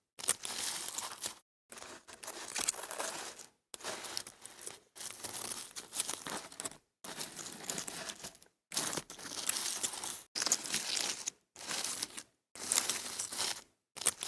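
Ant colony sound effects: a run of short clips of dry crackling and rustling, each one to two seconds long, cut apart by brief silences.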